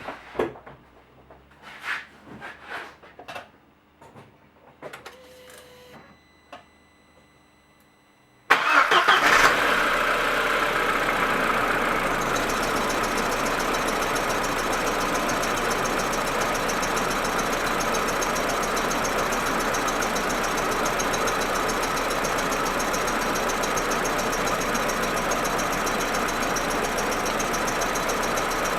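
A few clicks and knocks, then about eight seconds in the Audi A4 1.8T's turbocharged four-cylinder engine starts with a loud burst and settles into a steady idle. The owner reports a rough idle and stutter, a misfire that appears only when the engine is cold.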